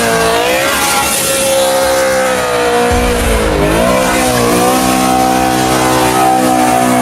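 BMW M3 E92's naturally aspirated V8 revving hard. The note climbs and holds, dips with a deep rumble about three seconds in, then climbs again and holds high.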